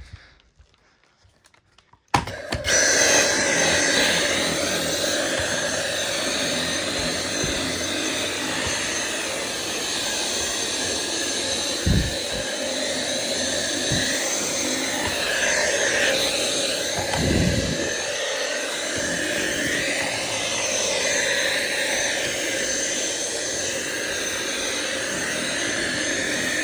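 Dyson V7 Absolute cordless vacuum in handheld mode switching on about two seconds in and running steadily while vacuuming stairs, its pitch shifting a little as the nozzle is moved. A few dull knocks come through the motor noise.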